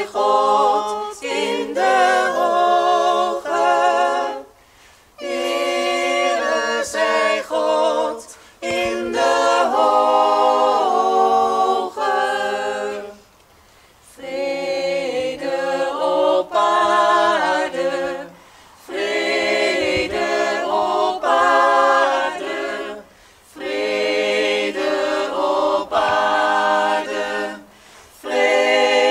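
Small mixed choir of men and women singing a cappella, in phrases of a few seconds broken by short pauses for breath.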